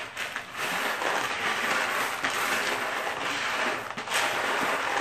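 Salted dry-roasted peanuts and M&M candies being stirred with a spoon in a plastic container: a steady, dense rattling clatter.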